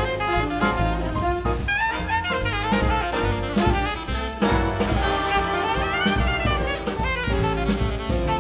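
Big band jazz: an alto saxophone solo over the full band, with brass and drums.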